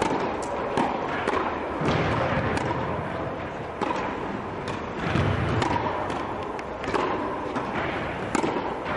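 Tennis balls being struck by rackets and bouncing on the court in a large indoor tennis hall: sharp, irregular hits, roughly one a second.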